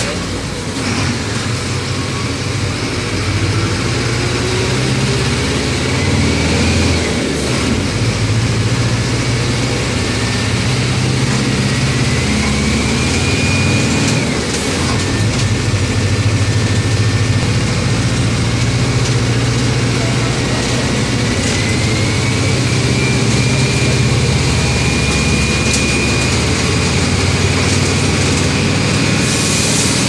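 Mercedes-Benz OM 924 LA four-cylinder inline diesel engine of an OF-1722M city bus running under load, with a thin whine that rises in pitch twice as the bus picks up speed, dropping back once about halfway through.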